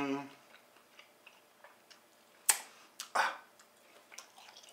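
A person chewing a mouthful of cooked steak with the mouth closed: faint wet smacks and small clicks, a sharp click about two and a half seconds in, and a short breathy rush just after three seconds.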